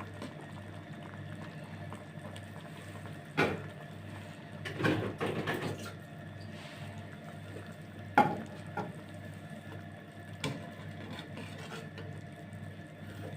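Kitchen handling sounds at the stove: a few sharp knocks and a short clatter of cookware over a steady low hum.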